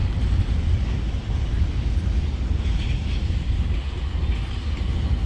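Diesel locomotives in a rail yard: a steady low rumble with no sudden changes.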